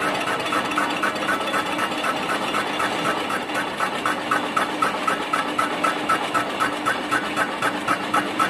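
Lathe running steadily, with a regular tick about five times a second.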